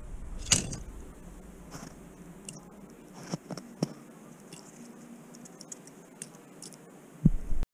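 Crunching of packed snow and ice as a diecast toy van is pushed over a snow heap and tumbles down it: a sharp crunch about half a second in, then a few softer crunches and scrapes. A louder thump near the end.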